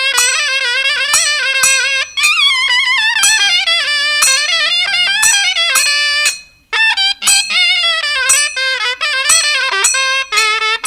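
Instrumental music: a single melody line with a wavering, gliding pitch, possibly a reed or wind instrument, that breaks off briefly about two thirds of the way through.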